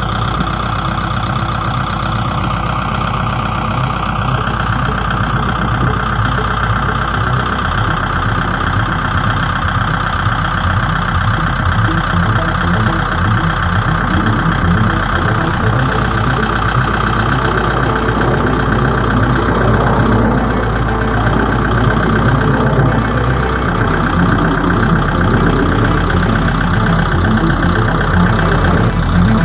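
Steady engine noise, a motor running without letup.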